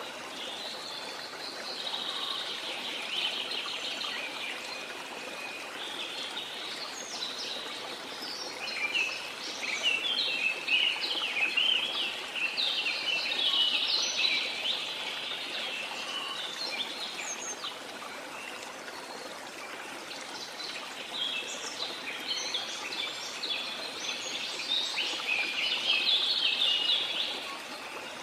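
Steady rush of a waterfall, with birds chirping and singing over it in busy bouts about ten seconds in and again near the end.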